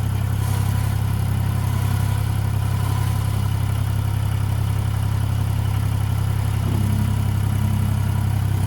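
International 4140 skid-steer loader's diesel engine running steadily at an even speed, with no revving. It sounds really good: a healthy engine.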